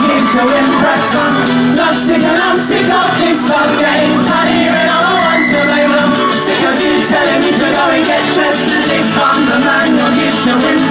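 Live pop band playing a song, with a lead vocal singing over guitar and a steady drum beat. It is loud and full throughout.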